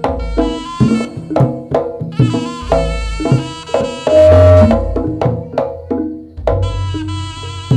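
Live jaranan music: drums and struck percussion keep a brisk rhythm under a melody line. There is one loud low boom about four seconds in.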